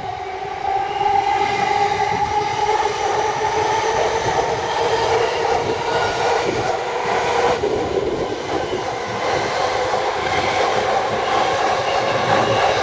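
Yamanote Line electric commuter train pulling away from the station. Its traction motors whine in two tones that rise a little in pitch over the first couple of seconds as it gathers speed, then hold steady over the rumble of wheels on the track.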